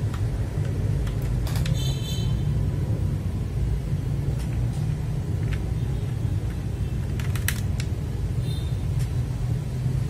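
A few scattered sharp plastic clicks from handling a mechanical keyboard and its keycaps, including a quick cluster of clicks past the halfway point, over a steady low rumble.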